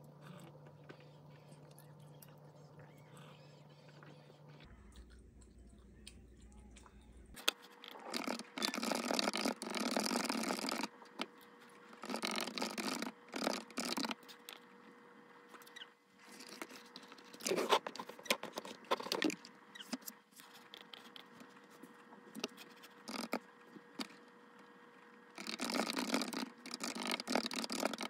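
Typing on a mechanical keyboard with tall white keycaps: bursts of rapid key clatter with pauses between, starting about a quarter of the way in after a quiet stretch, over a faint steady hum.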